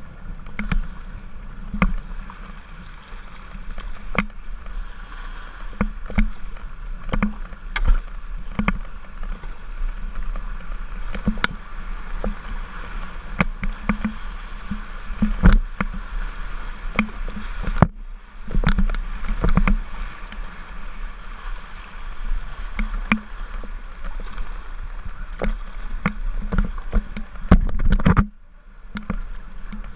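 Whitewater kayak running a shallow rapid: rushing, rippling river water with irregular splashes and knocks from paddle strokes and water slapping the hull. Near the end comes a louder splash, then a brief muffled dip as water covers the boat-mounted camera.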